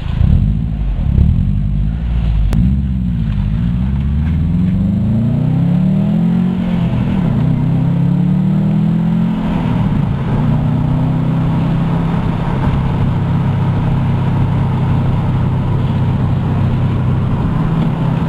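2007 Subaru STi's turbocharged flat-four running through a Borla Hush exhaust, heard from inside the car under acceleration. The engine pitch climbs and drops several times in the first half, then holds steady at an even cruise.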